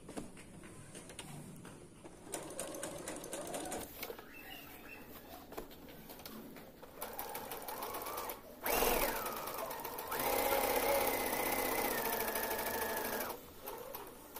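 Electric sewing machine stitching: a few slow, faint spells of stitching, then a quick burst about nine seconds in whose motor whine drops as it slows. After that comes a steady, louder run of about three seconds that stops suddenly near the end.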